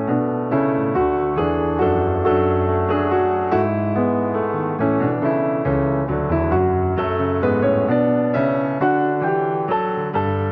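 Background piano music: a gentle, steady keyboard piece of sustained notes and chords.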